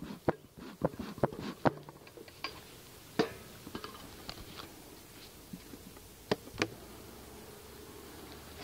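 Sharp clicks and knocks of a wooden beehive and beekeeping tools being handled as the hive's outer cover is pried up and lifted off. Near the end a low, steady hum of honeybees begins to rise from the opened hive.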